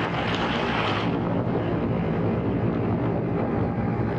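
Small electric RC plane's motor and propeller running steadily in flight, heard from a camera on board, with wind rushing over the microphone. The wind rush eases about a second in.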